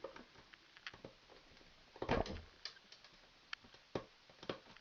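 Scattered light clicks and clacks of metal wire strippers being handled, with one louder knock about two seconds in.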